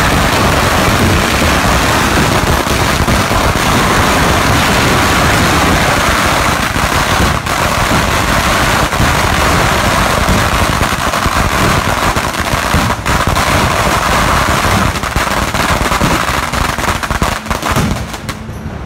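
A long string of firecrackers going off in a rapid, continuous crackling barrage. It starts abruptly and eases off a little near the end.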